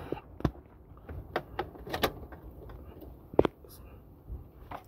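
Several light clicks and knocks, the loudest about three and a half seconds in, from hands working the ignition key and radio controls inside a car.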